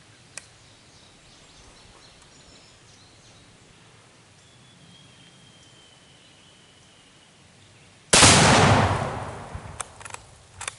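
About eight seconds in, a single loud blast as a rifle shot detonates a Tannerite exploding target taped to an old trailer door. The blast dies away over a second or two, with a few sharp clicks after it. Before it there is quiet outdoor background with a faint thin whistle.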